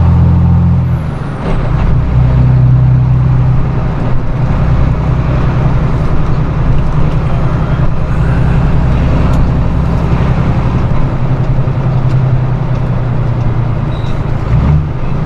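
Flatbed straight truck's engine running at low speed, its note changing about a second in and again near eleven seconds.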